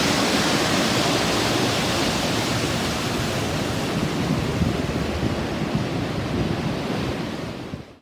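Water pouring over a river dam: a steady rushing noise that fades out near the end.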